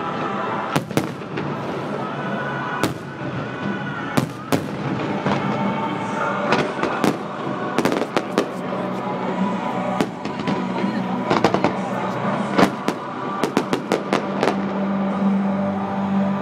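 Fireworks display bangs: sharp reports going off irregularly, some singly and some in quick clusters, over a steady layer of background music.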